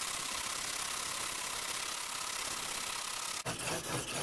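A steady, even hiss, then from about three and a half seconds in, rasping back-and-forth strokes of a broadhead's steel edge in a roller sharpening guide scraping across a 2500-grit diamond sharpening stone, honing to raise a burr.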